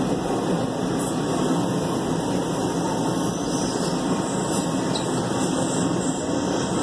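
Steady running noise inside a moving Metro Red Line subway car: the even rumble and rush of the wheels on the rails and the car's running gear.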